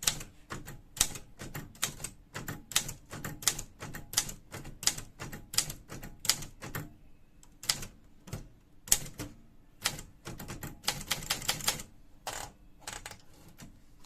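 Triumph Gabriele 10 portable manual typewriter being typed on: irregular keystrokes a few per second, with a quick burst of strokes near the end.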